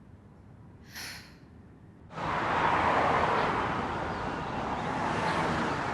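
Traffic noise, a steady rush of vehicles, starting suddenly about two seconds in, after a brief high hiss about a second in.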